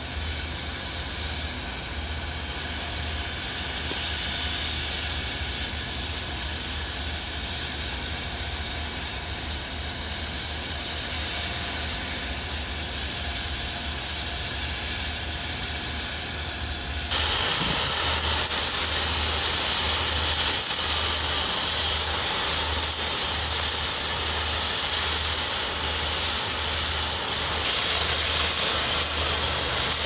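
Oxy-fuel cutting torch on an automated carriage hissing steadily as its flame cuts through thick steel plate. The hiss jumps louder and brighter about halfway through.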